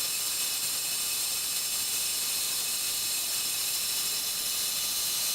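Metal-cutting saw running steadily through steel: an even hiss with a faint high whine.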